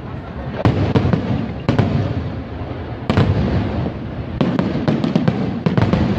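Fireworks display: aerial shells bursting in a series of about ten sharp bangs at irregular intervals, several in quick succession in the second half, over a continuous low rumble.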